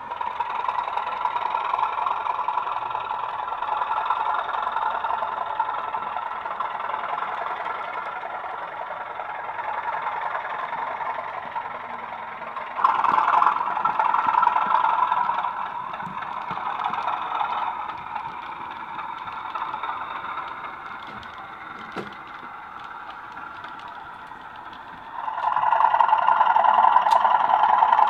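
Engine sound of sound-fitted OO gauge model diesel locomotives running on the layout, a steady engine drone played through a small onboard speaker. It gets louder about halfway through and again near the end as a train comes nearer.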